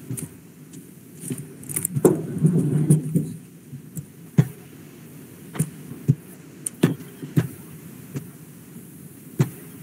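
Irregular sharp clicks and knocks, about a dozen spread unevenly, with a brief cluster of rustling and knocking about two to three seconds in.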